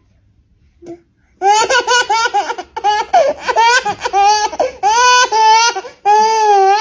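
Baby laughing: after a brief quiet start, a long run of quick, high-pitched giggles and squeals, ending on one longer squeal.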